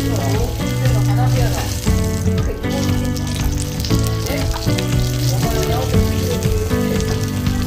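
Slices of wagyu beef sizzling and crackling on a tabletop yakiniku grill, with steady musical tones and murmuring voices underneath.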